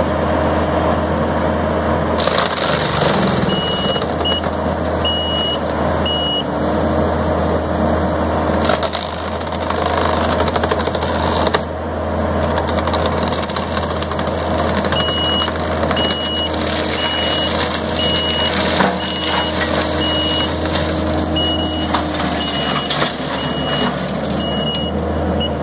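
Kubota SVL90-2 compact track loader's four-cylinder diesel running hard, with its Fecon forestry mulcher head chewing through brush. The machine's backup alarm beeps about once a second while it reverses, briefly a few seconds in and again through the last ten seconds.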